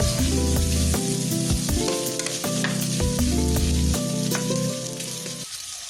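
Pre-boiled pork frying in hot oil in a pan, sizzling steadily with occasional stirring, under background music that stops about five and a half seconds in.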